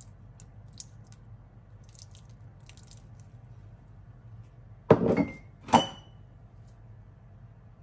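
Two sharp knocks of a utensil against a glass mixing bowl, a little under a second apart, each leaving a brief ringing tone, the second ringing longer; a few faint light clicks come before them.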